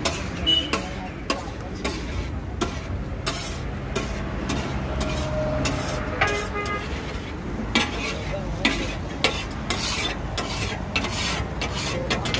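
Steel spatula scraping and clacking against a large flat iron griddle (tawa) as pav bhaji is stirred and spread, in quick irregular strokes over a low sizzle. A brief pitched toot sounds about six seconds in.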